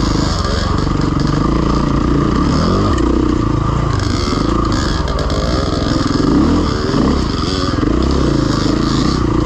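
Engine of a KTM 500 EXC, a single-cylinder four-stroke dirt bike, ridden down a rocky trail, its revs rising and falling again and again with the throttle.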